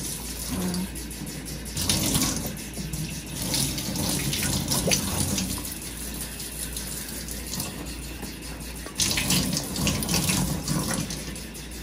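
Kitchen tap running into a stainless steel sink, the stream splashing over hands and emptied eggshells as they are rinsed out. The splashing grows louder and softer several times as the shells are moved in and out of the stream.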